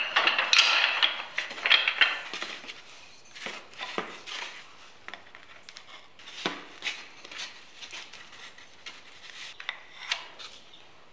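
Wooden dowels clattering and knocking against each other as a handful is pulled from a rack, loudest in the first two seconds. After that, scattered single light knocks and taps as dowel pieces are handled and set down on a wooden workbench.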